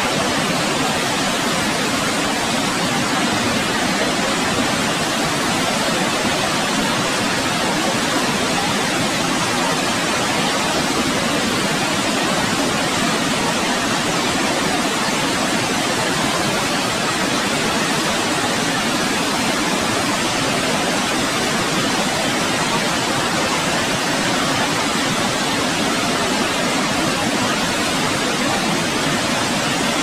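Dettifoss waterfall: a steady, loud rush of a massive volume of water plunging into its gorge, an even unbroken noise with no change from start to end.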